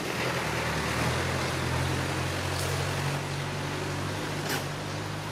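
A steady low engine hum over a noisy background, with a brief high squeak that falls in pitch about four and a half seconds in.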